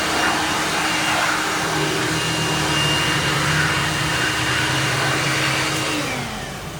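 Electric air blower running steadily with a whining rush of air, switched off near the end and winding down with a falling pitch.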